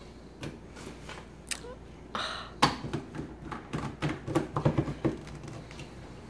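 Sharp clicks and knocks of a plastic personal-blender cup being handled, with a short rustle a little after two seconds in and a quick run of clicks around four to five seconds in as the blade lid is twisted onto the cup.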